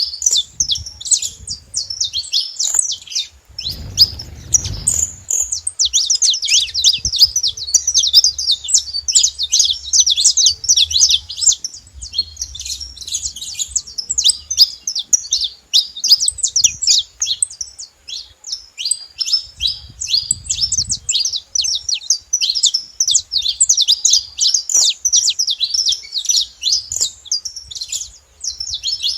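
Saffron finch singing without a break: a fast, dense stream of high chirps and trills.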